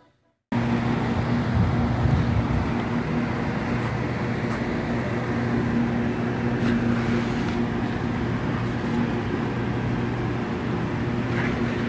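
Steady low mechanical hum, like an idling engine or running motor, with a constant wash of outdoor traffic-like noise; it starts abruptly about half a second in.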